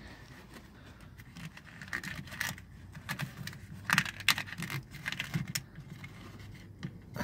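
Corrugated plastic split loom being pushed by hand back over a fuel line, rustling and clicking against the metal frame in irregular scrapes and clicks, busiest in the middle.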